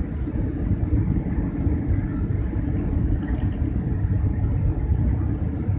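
Jet airliner cabin noise during the climb just after takeoff: a steady low rumble of the engines and rushing air, heard from inside the cabin.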